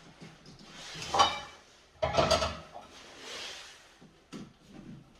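Scraping and rustling handling noises as electrical wires are worked in a switch box, with two louder scrapes about one and two seconds in, and a few small clicks near the end.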